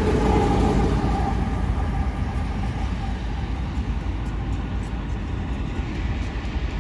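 Freight train passing close by: a diesel locomotive's engine sound fades away within the first second or two, leaving the steady rumble of the train rolling past.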